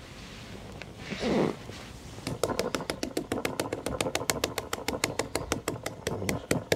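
Fingers tapping rapidly and evenly on a carbon fishing pole, about eight light knocks a second, to shake loose pellets out of the pole cup into the swim. This is preceded about a second in by a single brief, loud noise.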